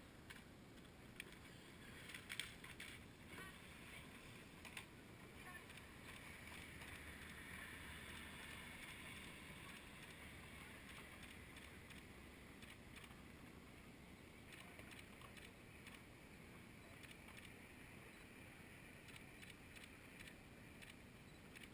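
Near silence on the river: faint water ambience with a few soft clicks. A distant rowing eight passing brings a faint hiss that swells in the middle and fades again.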